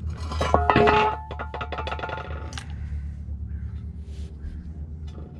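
Background music with percussion: a short run of held notes about a second in, then a quieter tapping beat.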